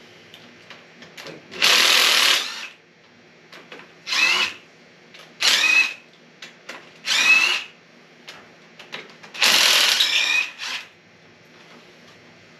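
Handheld power tool run in five short bursts of about a second each, its motor pitch rising within some bursts.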